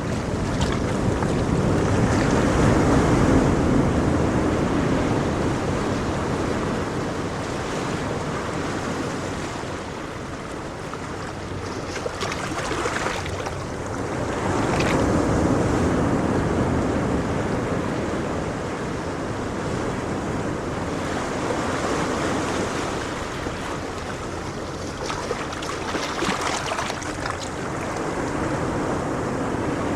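Ocean waves washing ashore in slow surges that rise and fall, the loudest about three seconds in and again about fifteen seconds in.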